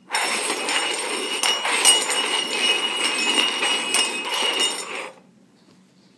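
Three stainless steel cups being slid and shuffled across a hard floor: a continuous scraping with metallic clinks and a faint ringing of the steel. It stops suddenly about five seconds in.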